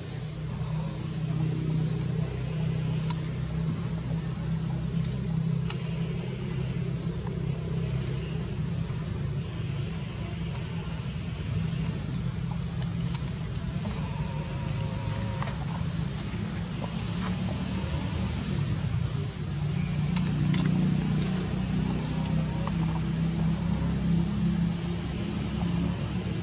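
Steady low motor hum with a high, even buzz above it.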